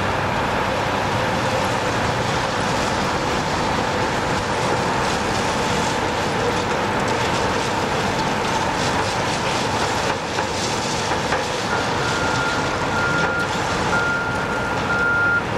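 Diesel track-maintenance machinery running steadily: a ballast tamper, then a front loader pouring crushed-rock ballast from its bucket onto the track. A backup alarm starts beeping repeatedly about two-thirds of the way through.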